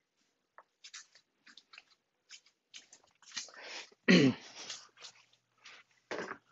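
Scattered rustles and light clicks of objects being handled and moved on a workbench. About four seconds in comes one louder short sound that drops in pitch.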